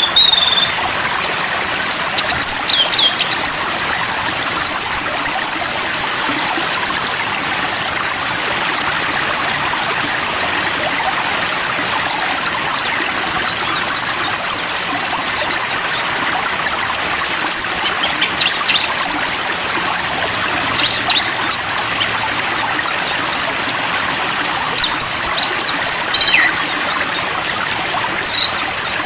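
Running water trickling steadily, with a small songbird chirping in short, high-pitched bursts every few seconds.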